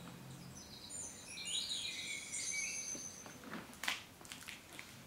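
Recorded dawn birdsong played through a children's sound book's small speaker: a short run of chirping, warbling bird calls. Near the end come a few sharp clicks.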